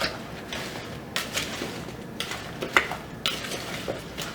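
A spoon stirring and tossing potatoes and carrots in a bowl: scrapes with several sharp knocks of the spoon against the bowl.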